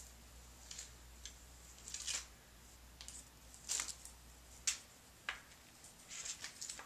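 Needle tool cutting through the soft clay rim of a pottery mold: a run of short, scratchy scraping strokes at irregular intervals, a second or less apart.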